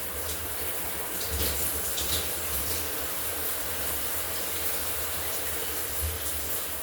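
Shower running: a steady spray of water.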